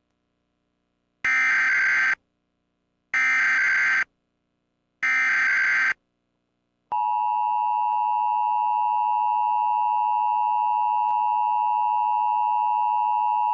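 Emergency Alert System test tones: three short bursts of warbling SAME header data, each about a second long, then from about seven seconds in the steady two-tone EAS attention signal.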